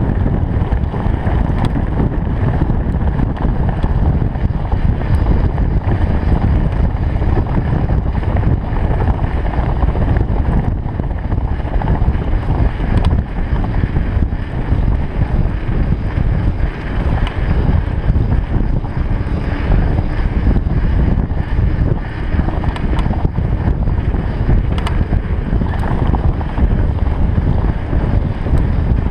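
Loud wind buffeting the camera microphone as a mountain bike speeds downhill, with the hum of its tyres on the road underneath. There are a few sharp clicks scattered through.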